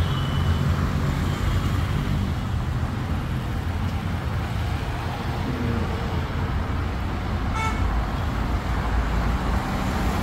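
Heavy city road traffic: a steady rumble of passing cars and motorbikes, with one short horn toot about seven and a half seconds in.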